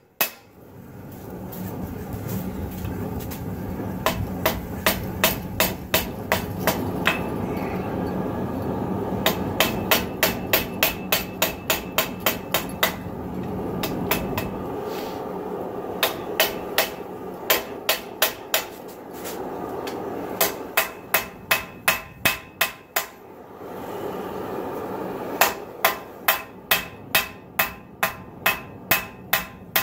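Hand hammer striking red-hot 80CrV2 knife steel on a 66 lb cast-steel anvil, drawing out the blade. The blows come in runs of about two to three a second, with short pauses between runs, over a steady rushing noise.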